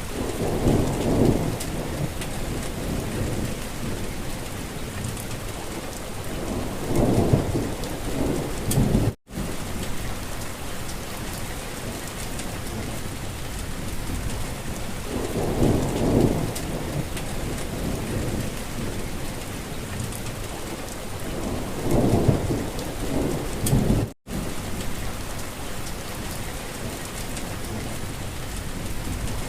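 Steady rain falling, with a low rumble swelling for a second or two about every six to nine seconds. The sound cuts out for an instant twice, about nine seconds in and again near twenty-four seconds.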